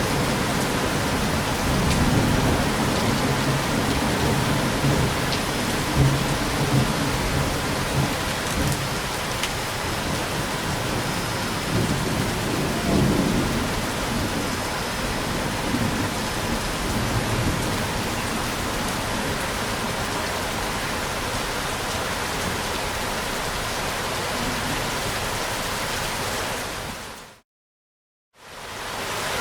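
Steady rain falling, with rolling thunder rumbling low and heavy through the first half. Near the end the whole sound fades out to a second of silence and comes back in.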